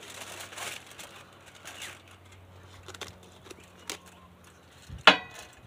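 Hand pepper grinder being twisted, grinding peppercorns in short gritty bursts, with a sharp click about five seconds in.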